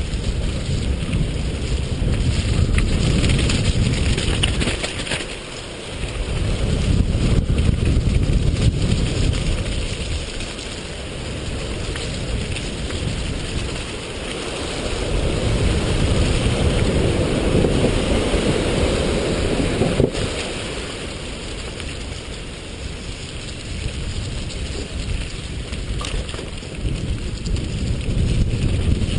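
Wind rushing on the microphone of a mountain bike descending a dirt trail, mixed with the noise of the tyres rolling over dirt. The rush swells and eases with the bike's speed, dipping briefly twice.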